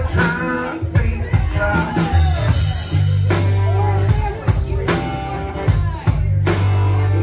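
Live rock band playing, with electric guitars, bass and drum kit, and a lead vocal line over it.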